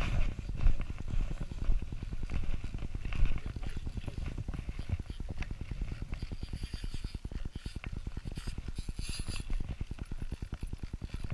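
Fishing reel being cranked while a fish is played in on a bent rod, a fast, even ticking of the reel's gears.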